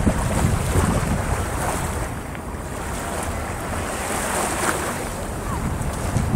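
Small waves breaking and washing up on a sandy shore in repeated swells, with wind buffeting the microphone.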